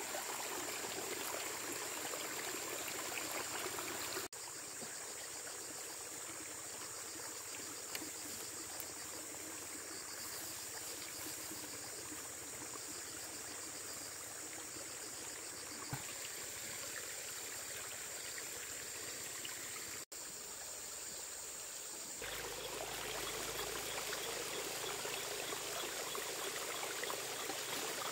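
Steady rush of running water, cut off briefly twice, about four and twenty seconds in, where the sound changes abruptly.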